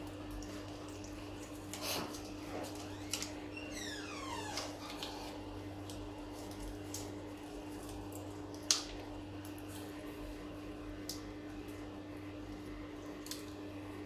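African grey parrot feeding on food held in its foot, its beak making scattered small clicks and crunches, the sharpest about two-thirds of the way through, over a steady low hum. A brief falling squeak comes about four seconds in.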